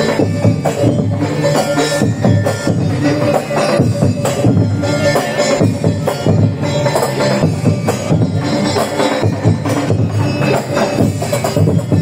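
Loud music with busy percussion: quick, even strikes over sustained pitched tones, without a break.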